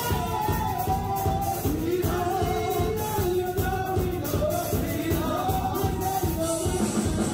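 A group of women singing a gospel praise song into microphones, held melody lines over a live band accompaniment with a steady beat.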